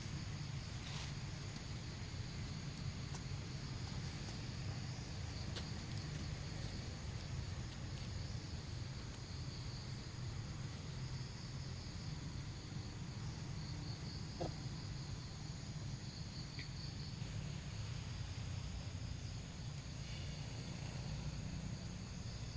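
Steady high-pitched insect chorus over a low continuous rumble, with one short rising chirp about two-thirds of the way through.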